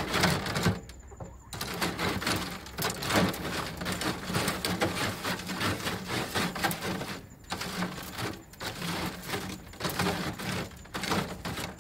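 A metal three-tined hand cultivator rakes compost across a half-inch welded wire-mesh sifting screen. It makes a dense, irregular scraping and rattling of metal tines on wire and soil, broken by a couple of short pauses.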